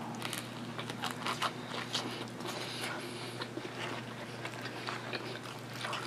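Close-up chewing and biting of a soft sub sandwich stuffed with cold cuts and lettuce, with many short, wet mouth clicks and smacks.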